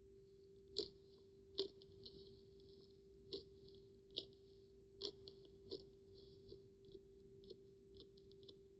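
Slime being squeezed and stretched by hand, giving sharp clicky pops of trapped air about once a second with softer crackles between them, over a steady faint hum.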